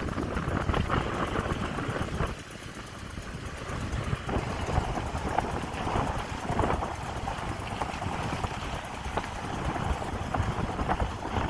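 Truck driving along a road: engine and road noise mixed with rushing wind on the microphone, dipping briefly about two seconds in and building again.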